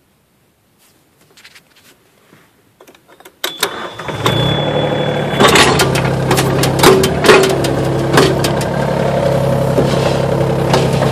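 Mini excavator's engine starting about three and a half seconds in, with a high steady tone for about two seconds, then running steadily. Sharp clanks from the arm and bucket working in the dirt come over it soon after the start.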